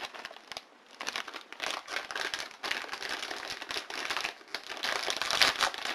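Crinkly plastic snack bag of cheese puffs rustling and crackling as it is handled and opened.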